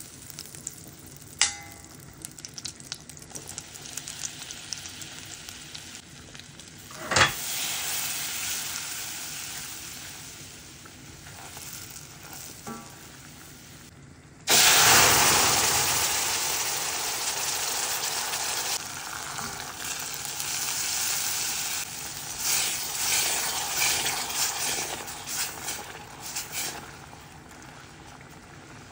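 Butter sizzling in a hot stainless steel pot, with a few clicks of a spoon against the pot. About halfway through a sudden loud sizzle starts and slowly dies down as liquid goes into the hot butter-and-flour roux, which is then stirred with a spatula.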